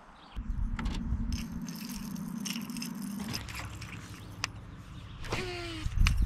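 A baitcasting fishing reel being cranked to retrieve a lure, a steady whirring hum with handling rumble and small clicks. Near the end there is a short whining cry that falls quickly in pitch.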